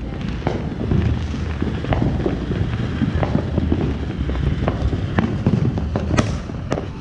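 TNT Cloud Chaser ground fountain firework spraying sparks with a steady rushing hiss. Scattered sharp pops come through it, with a louder one about six seconds in.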